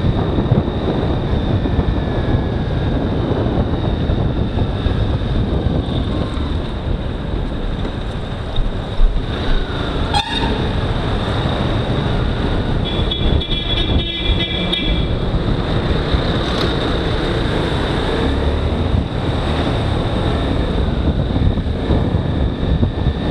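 A motorcycle running at speed, with a steady rush of wind and road noise. About halfway through, a vehicle horn sounds for about two seconds, shortly after a brief sharp chirp.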